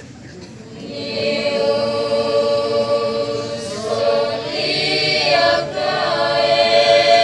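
Catholic youth choir singing. The voices come in about a second in and hold long notes, with the chord moving partway through.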